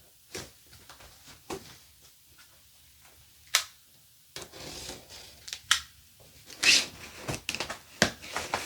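Packaging and parts being handled during an unboxing: scattered rustles, rubbing and light knocks, with a sharp knock about three and a half seconds in and a cluster of louder knocks near the end.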